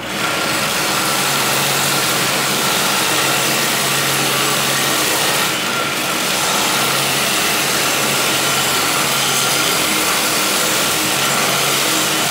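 Homemade belt sander driven by a sewing-machine motor starts abruptly and runs steadily. A steel knife blade is held against the moving abrasive belt, giving a continuous grinding hiss over the motor's hum.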